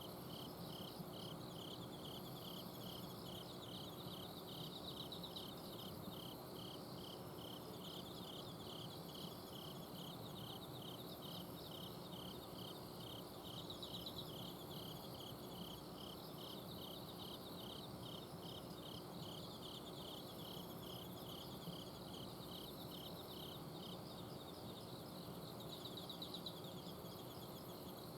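A night chorus of autumn crickets: one insect chirps evenly about twice a second while others trill faintly higher up, and the regular chirping pauses near the end. Under it runs the steady low hum of an air-conditioner outdoor unit.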